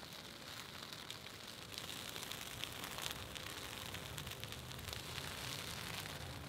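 Fire burning in forest fuels, crackling with scattered sharp pops over a steady hiss.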